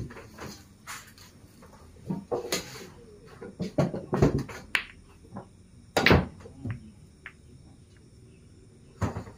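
Sharp clacks of pool balls and cue strikes, a handful spaced irregularly, the loudest about six seconds in.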